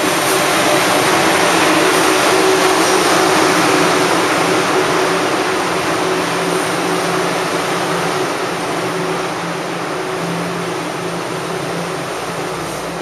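JR 24-series sleeper coaches behind an EF81 electric locomotive rolling past along the platform as the train arrives: a steady rumble and hiss of wheels on rails, loudest a few seconds in and then easing off as the train slows.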